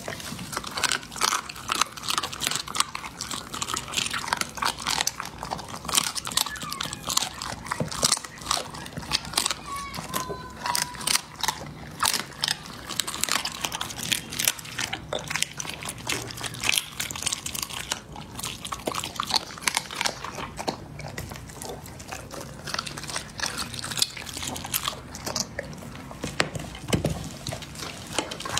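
A dog chewing and crunching raw meat and bone, with rapid, irregular bites and crunches throughout.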